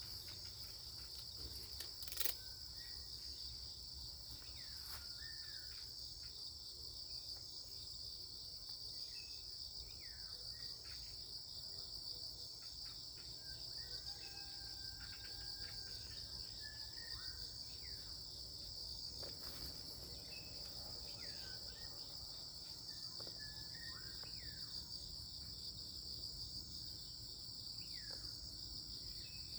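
Insects trilling in a steady, high-pitched chorus, with short chirps scattered through it and a single sharp click about two seconds in.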